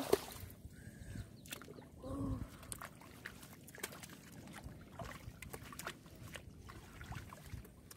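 Hands splashing and sloshing through shallow muddy water while groping for fish, with scattered small splashes and drips. A short pitched cry comes about two seconds in.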